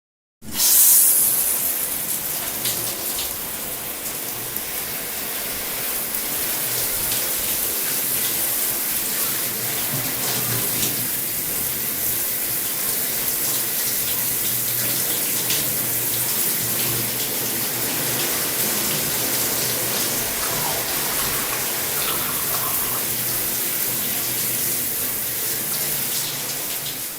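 Shower spray switched on about half a second in, with a sudden loud burst of water, then running steadily.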